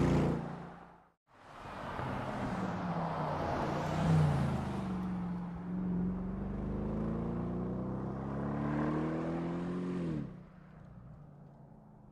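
Bentley Continental V8 S's twin-turbo V8 running under acceleration, its revs climbing, dipping once around the middle, then climbing steadily before the sound falls away sharply about ten seconds in. Near the start a loud engine sound fades to a brief silence.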